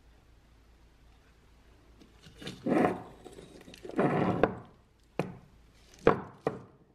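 Painted cast-iron bench vise parts being handled on a hard surface: two scraping slides of metal over the surface, then three sharp knocks as a part is set down.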